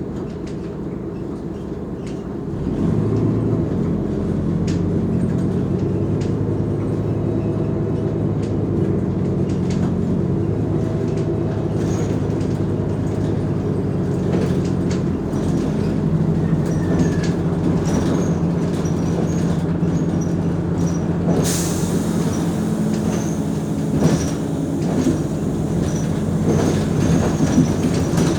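Mercedes-Benz O345 Conecto G bus engine pulling away and running under load, its note stepping several times as the gearbox shifts, with scattered rattles and clicks from the bus body.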